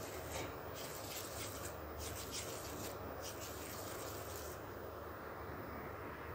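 Faint soft rubbing of hands rolling cooked rice-flour dough into a small ball, over a low steady hum.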